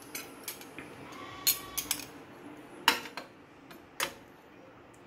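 A few scattered clicks and clinks of a steel spoon and glass bowls being handled. The sharpest two come about three and four seconds in.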